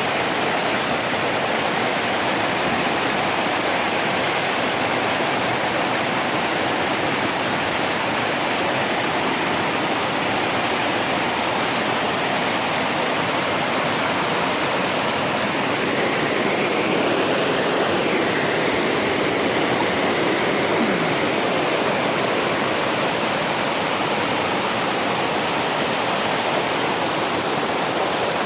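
Waterfall pouring, a steady, loud rush of falling water that does not let up.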